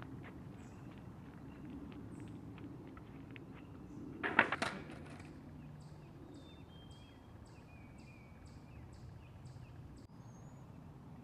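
Skateboard clattering onto a deck in a quick cluster of knocks about four seconds in, the loudest sound. Before it come light footsteps; birds chirp faintly throughout, with a run of faint, evenly spaced high ticks afterwards.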